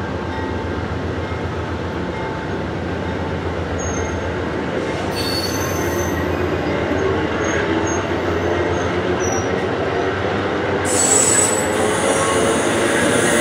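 Amtrak passenger coaches rolling slowly past, their steel wheels making a steady rumble on the rails. High-pitched squeals from the wheels come in about five seconds in and again, louder, near the end.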